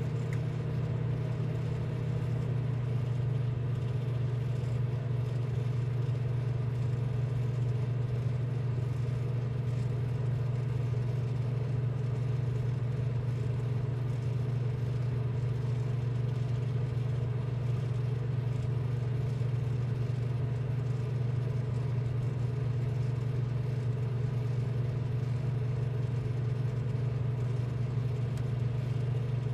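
Steady, unchanging low machine hum with faint higher tones above it.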